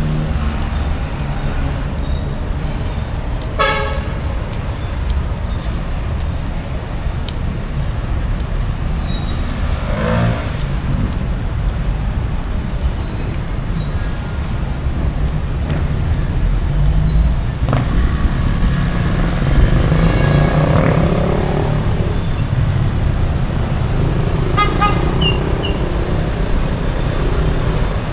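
Busy city-street traffic: a steady rumble of passing vehicles, with short horn toots about four seconds in, about ten seconds in and again near the end.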